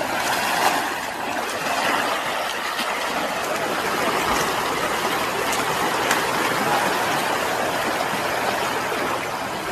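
Steady rushing of a fast-flowing river, churned by an elephant wading through the current.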